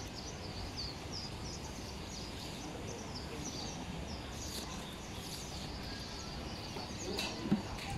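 Small birds chirping repeatedly over a steady low outdoor rumble, with a brief knock near the end.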